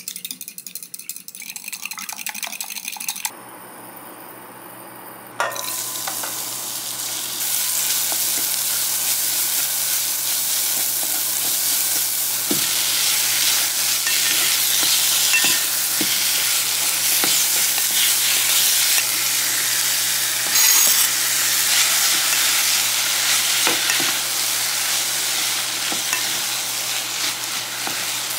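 Eggs beaten in a glass measuring cup, a quick run of clicks for the first few seconds. Then, after a short quieter stretch, chopped onion, green onion and minced meat sizzle steadily as they fry in a pot, with a wooden spatula stirring and scraping now and then.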